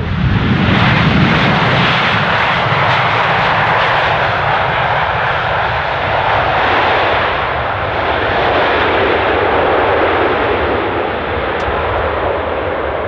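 Loud engine noise of a jet airplane passing close by, swelling about half a second in and holding steady, then easing slightly near the end.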